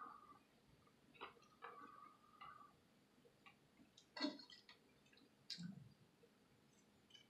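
Near silence broken by a few faint, scattered clicks and smacks of someone eating, chewing and lip smacks, the clearest about four seconds in and again about five and a half seconds in.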